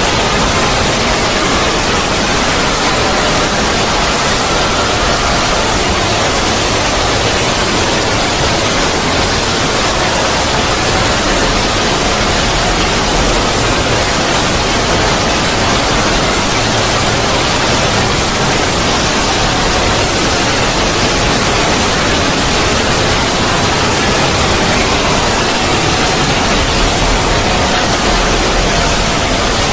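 Synthetic 'void' sound effect: a loud, steady rush of noise across all pitches, with faint pitched tones drifting through it.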